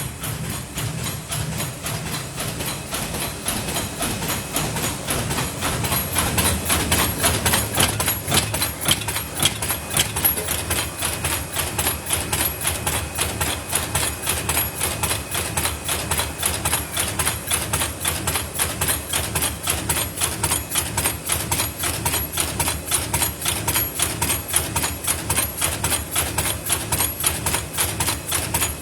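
Paper lid forming machine running in production, a rapid, even mechanical clatter of repeating strokes. It grows louder about six seconds in, then holds steady.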